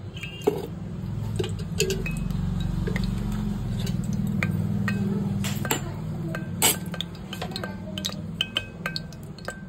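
Cooking oil being poured into a hot stainless steel pressure cooker, with sharp metallic clinks and taps from the pot and utensils, a few ringing briefly near the end. A low steady hum runs underneath and fades out about six seconds in.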